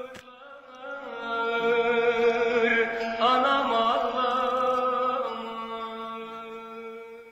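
Background music: a Turkish folk melody of long, wavering held notes that fades out near the end.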